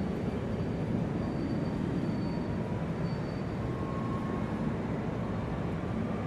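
Airport ambience: a steady low rumble of engines and machinery, with a faint thin high whine in the first half and a fainter lower tone later.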